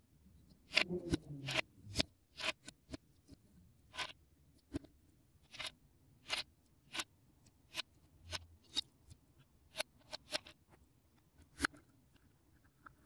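Lego bricks clicking and tapping under the fingers as pieces of a small brick-built car are pressed and pulled: an irregular string of sharp plastic clicks, loudest about a second in.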